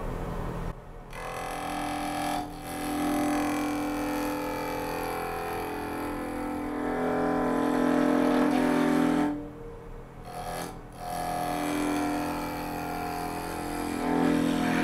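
Turning tool cutting a wooden spindle blank spinning on a Robust wood lathe: a steady, pitched singing from the cut that drops out a few times as the tool comes off the wood, the longest gap about two-thirds through. The lathe's low motor hum runs underneath.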